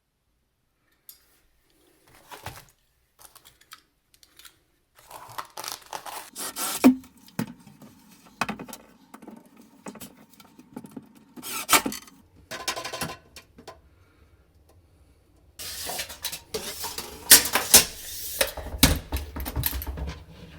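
Wooden cabinet parts and metal hardware being handled on a workbench: scattered knocks and clatters, busier and with a low rumble in the last few seconds.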